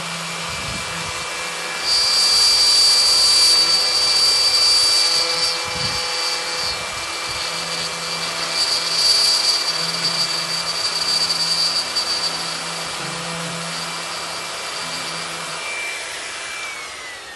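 Electric plunge router running at full speed with a steady whine, its bit cutting into the painted wooden planks of a cable-spool tabletop, louder during the cutting stretches. Near the end the motor is switched off and winds down with a falling whine.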